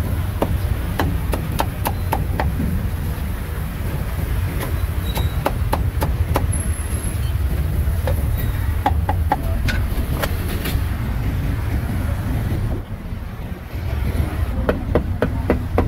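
Busy roadside market din: a steady low rumble with scattered sharp knocks and clicks over it. The rumble dips briefly near the end.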